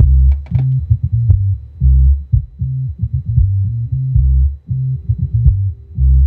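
Music through an 8-inch subwoofer behind an active low-pass filter: only the deep bass notes come through, each held a fraction of a second before the next. Scattered pops run through it, caused by overdriving the camera's microphone.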